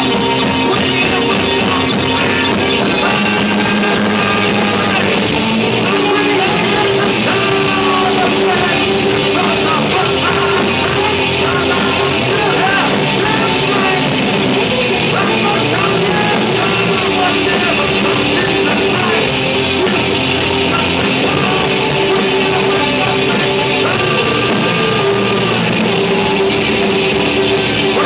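Loud hard rock music played without a break, with electric guitars and a drum kit.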